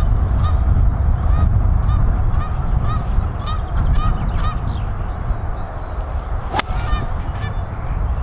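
A golf club striking the ball on a long fairway shot: one sharp crack about six and a half seconds in. Before it, a bird calls over and over, about twice a second, over wind rumbling on the microphone.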